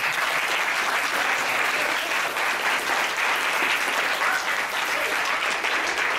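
An audience applauding steadily after a talk, many hands clapping at once.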